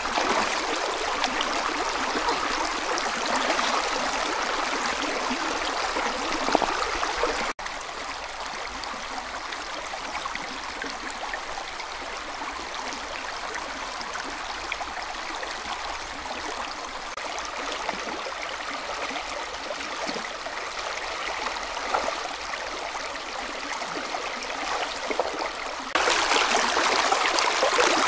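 Shallow, rocky river running and babbling over stones, a steady rush of water. It turns quieter suddenly about seven seconds in and louder again near the end.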